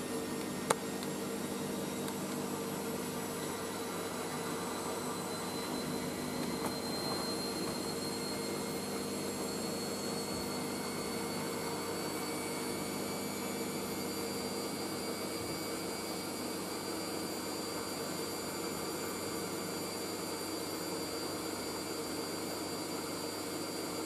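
Hoover SIX AAA160 Whisper 1600 washing machine spinning: a steady motor hum and drum rush, with a high motor whine that climbs slowly over the first two-thirds and then holds as the spin ramps up gradually. A single click about a second in.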